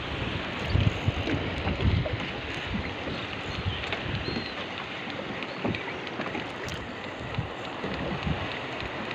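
Wind buffeting the microphone over the steady wash of sea water around a small fishing boat, with a few low gusty thumps in the first couple of seconds.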